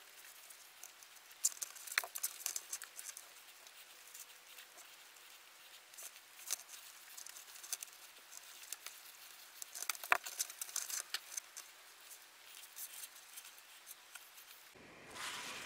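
Crinkly rustling of metallic plastic deco mesh being bunched and twisted into bubbles on a wire wreath frame, with scattered light clicks.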